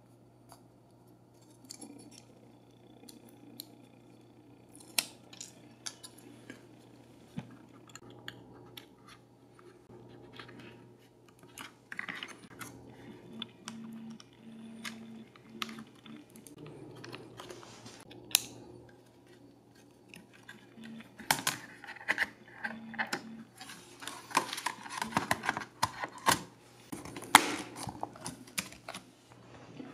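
Small clicks and taps of hands handling an mSATA SSD on a ZIF converter board and a netbook's flat-cable connector and parts. A run of dense keyboard key clicks comes in the last several seconds.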